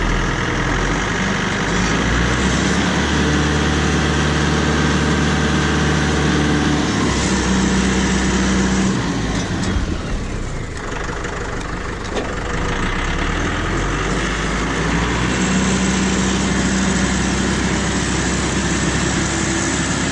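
Farm tractor engine running steadily, its pitch stepping up and down as the throttle changes, easing off for a few seconds about halfway through.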